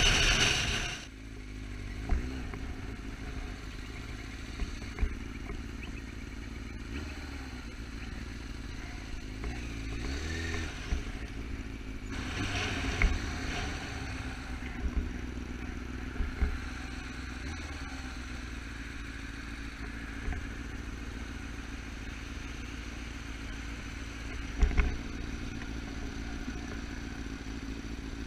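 Yamaha R6 sport bike's inline-four engine, heard from the rider's camera, running in city traffic, its pitch rising and falling as it speeds up and slows. Occasional short knocks and scrapes.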